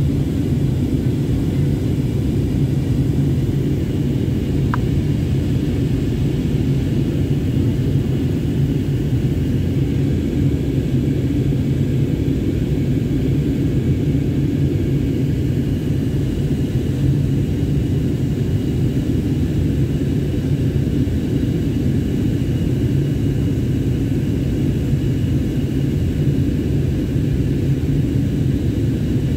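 Steady low jet engine and airflow noise inside the passenger cabin of an Airbus A320-family airliner in flight.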